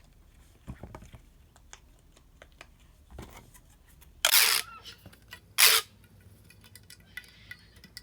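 Silicone pop-it fidget toy being pressed quickly, its bubbles giving a run of small soft pops and clicks, with two louder scuffing bursts about four and five and a half seconds in.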